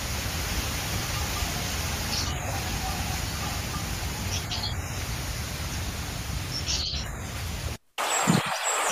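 Outdoor field ambience: a steady rushing background with a short, high bird call repeating about every two seconds. Near the end the background cuts out for an instant and gives way to a different one with a few low knocks.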